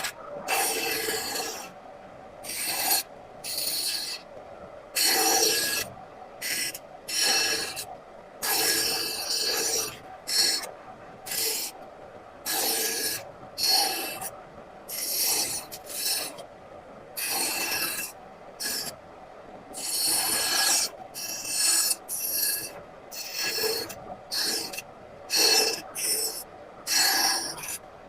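A hand tool scraping across wood in a long run of short, irregular strokes.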